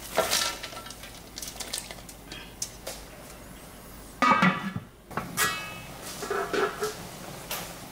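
Bean sprouts dropped into a wok onto pieces of raw monkfish with a rustling clatter, then the wok's lid clanking on about four seconds in with a short ring, and a second ringing lid clank about a second later.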